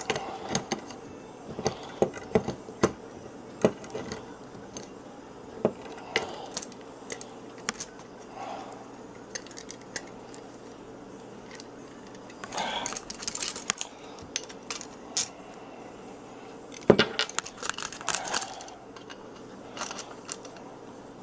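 Wrenches clinking and scraping on a brass compression fitting of a water line as it is tightened: scattered sharp metallic clicks, with two busier runs of clinking, one about halfway through and one a few seconds later.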